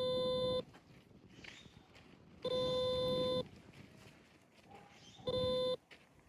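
Sound box on a remote training collar beeping three times with a steady single-pitched tone, each beep marking a press of the pager (vibrate) button that cues the dog to turn back. The first and last beeps are short and the middle one lasts about a second.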